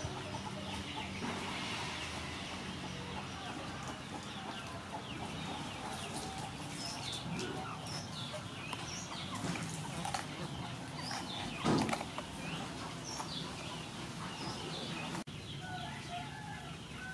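Knife slicing bell peppers on a wooden cutting board, with light knocks and one sharp knock about two-thirds of the way through, while birds chirp in short high calls throughout.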